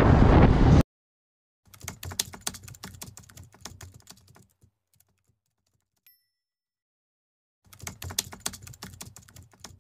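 Wind and motorcycle riding noise on the microphone, cutting off suddenly under a second in. Then two runs of rapid keyboard-typing clicks, a typing sound effect for text appearing on screen, with a faint short ding between them.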